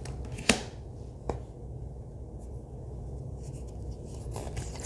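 Oracle cards handled by hand during a flip-through: a sharp card snap about half a second in, a lighter tap a little after a second, and soft rubbing and sliding of card stock near the end, over a low steady room hum.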